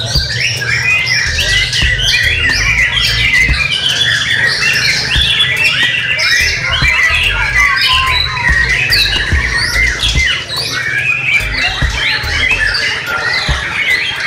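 Several caged white-rumped shamas singing at once: a dense chorus of overlapping whistled phrases, trills and chatters with no pause, over a low rumble.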